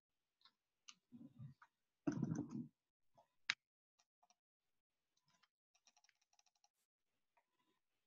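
Long-nosed butane utility lighter being clicked at a candle: one sharp click a little over three seconds in, then a quick run of faint clicks. A short bump of handling noise comes about two seconds in.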